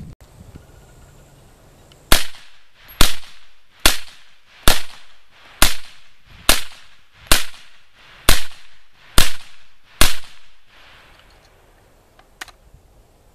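Ten semi-automatic shots from a 5.56×45 Miltac Alpha Series M4 carbine fitted with a SureFire suppressor, fired at a steady pace of about one a second, each crack followed by a short echoing tail. A faint click sounds near the end.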